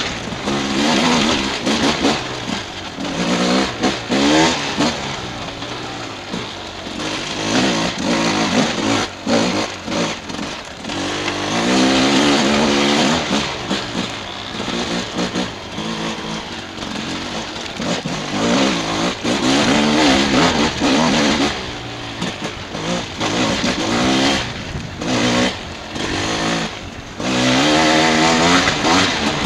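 Dirt bike engine heard from the rider's seat, its pitch rising and falling over and over as the throttle is worked along a rough trail, broken by frequent short knocks.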